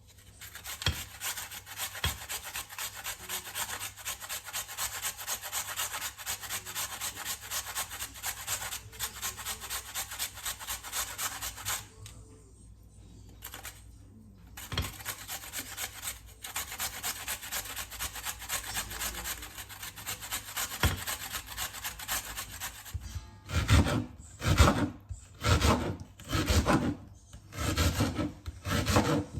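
Food being grated on a hand grater: quick rasping strokes, a short break about twelve seconds in, then slower, louder strokes near the end.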